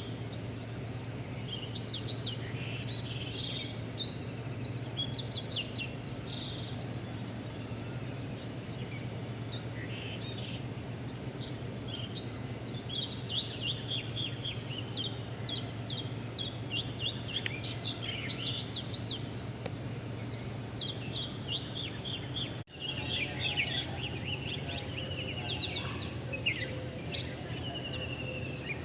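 Several small birds chirping and twittering in quick, repeated short notes, over a steady low hum. The sound drops out briefly about three quarters of the way through.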